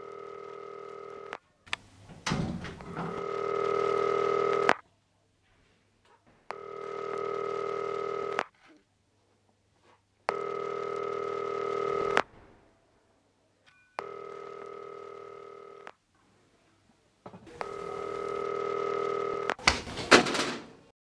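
Telephone ringing over and over: about six rings, each lasting about two seconds with two-second gaps between them. A burst of noise comes about two seconds in, and a louder, sharper burst of noise near the end.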